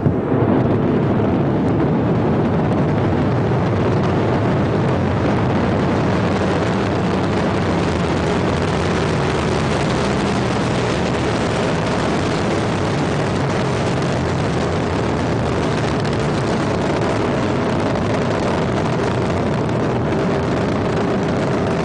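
Ariane 5 rocket climbing after liftoff, its solid boosters and Vulcain main engine making a loud, steady rumbling roar.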